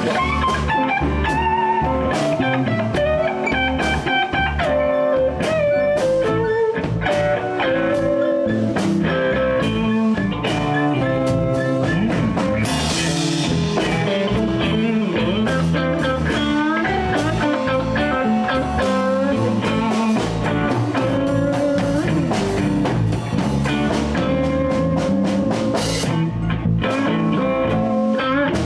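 Live blues band playing: guitar over bass and drums, with a steady drum beat and lead notes that bend and waver in pitch.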